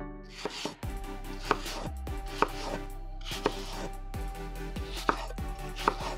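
Kitchen knife peeling and cutting an apple on a wooden cutting board: scraping cuts through the fruit and about five sharp knocks of the blade against the board.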